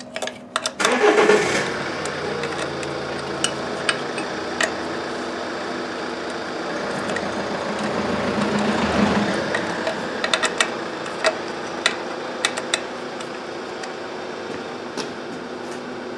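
A steady mechanical running noise with a low hum comes in loudly about a second in. Sharp clicks and knocks of parts being handled are scattered through it, in a cluster near two-thirds of the way through.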